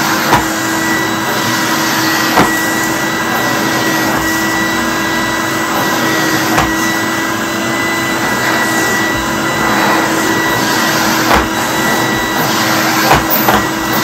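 1991 Numatic Henry HVR200 vacuum cleaner running steadily, its floor tool pushed over carpet, with a steady hum and a thin high whine over the rush of air. The motor is still running well. A few short knocks come through, mostly near the end.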